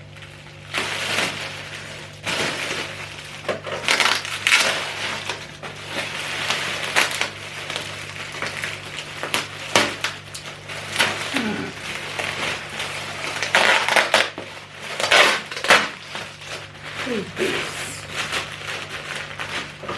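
Plastic packaging crinkling and rustling in irregular bursts as a parcel is opened and its contents unwrapped.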